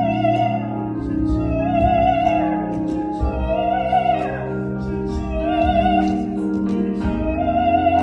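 A woman singing in operatic style: a run of high held notes, each about a second long, with wide vibrato, over a steady sustained instrumental accompaniment.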